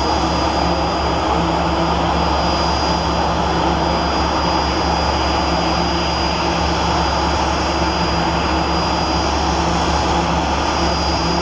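Aircraft engine running steadily nearby: a constant high whine over a low drone and rush, with no change in pitch.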